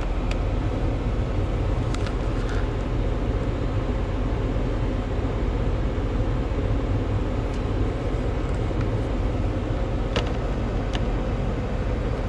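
Steady rushing of a Nissan X-Trail's heater blower fan pushing air through the vents with the engine running, with a few light clicks scattered through it.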